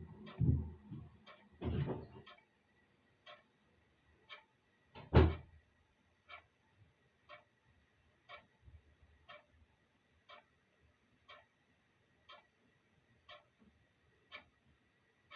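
Clock ticking steadily, about one tick a second. Low bumps and rumbling in the first two seconds, then a single loud thump about five seconds in, the loudest sound.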